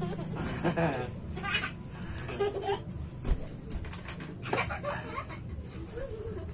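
Young children giggling and laughing in short bursts, with a few light knocks.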